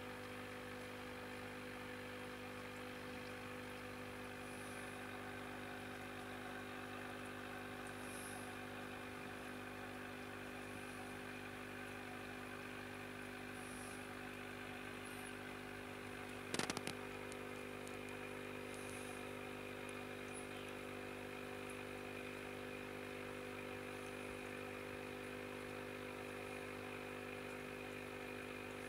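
Steady mechanical hum of running aquarium equipment, with one sharp knock a little past the middle.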